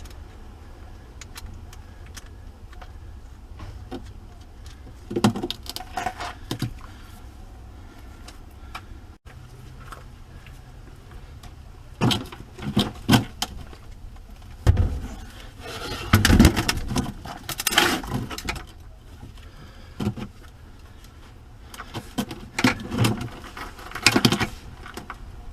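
Several bursts of metallic clinking and knocking from hand tools and hardware being handled, over a steady low hum.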